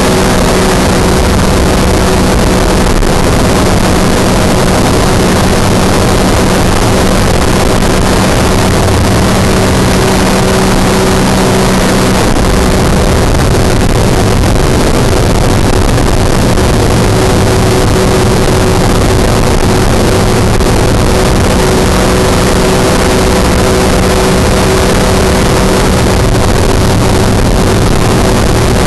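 Engine of a weight-shift microlight trike running steadily in flight, under a loud rush of wind on the microphone. Its deepest hum fades about twelve seconds in and comes back near the end.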